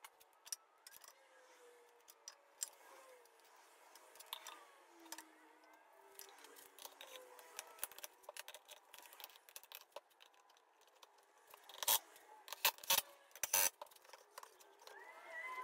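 Plywood parts of a shop-made dust hood being handled and test-fitted against a stationary belt sander: scattered light clicks and taps of wood on wood, then a run of several sharp knocks near the end.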